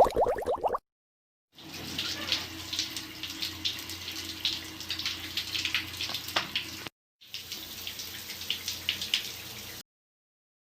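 Water sound effect: running, splashing water with scattered sharp droplet ticks, which breaks off briefly once and cuts off suddenly near the end. A short run of rapid bubbling plops ends just under a second in, before the running water starts.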